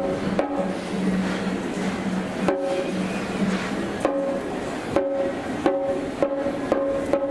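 Ensemble of taiko drums struck together with bachi sticks, each stroke sharp with a short ringing pitch. The strokes are sparse and unevenly spaced at first, then come closer together toward the end, building into a faster beat. A low held tone sounds under the first few seconds.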